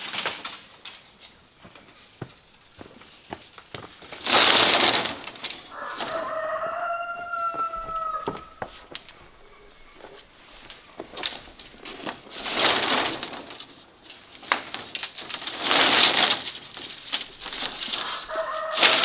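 A rooster crows once about six seconds in, a long call held for about two and a half seconds, and another crow begins right at the end. Louder bursts of harsh rasping noise, each about a second long, come and go around the crows, with scattered knocks.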